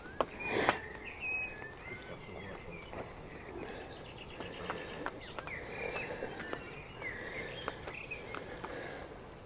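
Songbirds chirping and calling with short, gliding notes, including a quick trill, over a steady outdoor hiss. Two sharp knocks sound within the first second.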